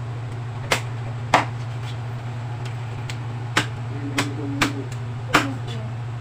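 Meat cleaver chopping raw chicken on a wooden cutting board: about six sharp, unevenly spaced chops, over a steady low hum.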